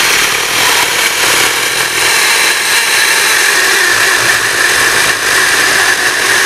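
Cordless one-handed mini chainsaw with an 8-inch bar running steadily under load as its chain cuts through a thick log.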